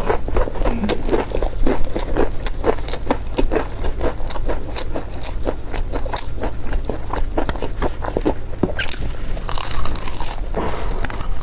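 Close-up crunching and chewing of crispy fried chicken: a quick, irregular run of sharp crunches, giving way near the end to a softer, hissing scrape.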